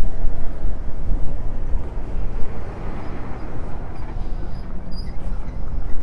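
Ford E-Series van driving past close by, its engine and tyres loudest in the first two seconds, then fading as it moves away.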